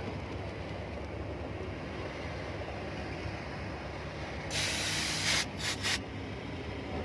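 A pressurized spray hisses for about a second, then gives two short puffs, over a steady low rumble.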